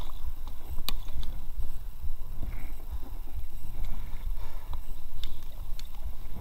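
An inflatable kayak and its paddle brushing and knocking against overhanging willow branches, with a few sharp knocks, over a steady low rumble.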